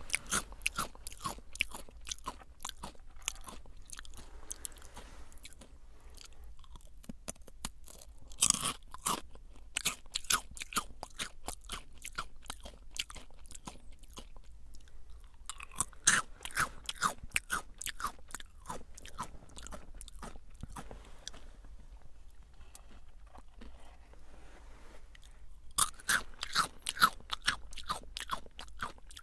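Close-miked crunching and chewing of Jagarico, Calbee's crunchy potato snack sticks: loud crisp bites about 8 seconds in, around 16 seconds and again near the end, with softer chewing in between.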